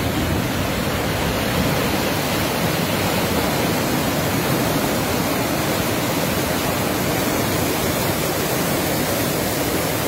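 Fast-moving brown floodwater rushing in a torrent, a loud steady churning noise without a break.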